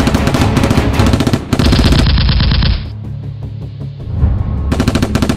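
Bursts of rapid automatic gunfire over background music. One long burst runs through the first few seconds, the music carries on alone for a moment, and a short burst comes near the end.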